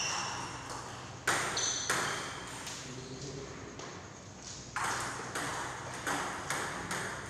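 Table tennis ball struck back and forth between rubber paddles and bouncing on the table in a rally, sharp pings that ring out briefly in the hall. The hits come in two groups, a pair near the start and several in quicker succession in the second half.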